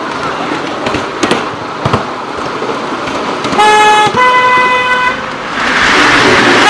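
Miniature steam train's whistle tooting twice, a short lower note then a longer, higher one. The train's running noise then swells and echoes as it enters a tunnel, and a further toot starts at the very end.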